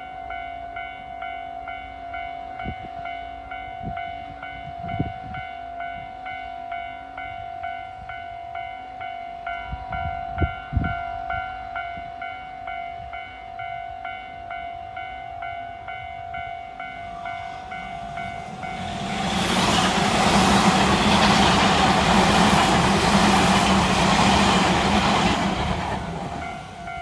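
A railway level-crossing bell rings in a steady, even rhythm. About 19 seconds in, a Tobu Railway electric train passes close by with a loud rush of wheel and motor noise lasting about seven seconds and drowning out the bell, which is heard again as the train moves away. A few dull thumps come in the first half.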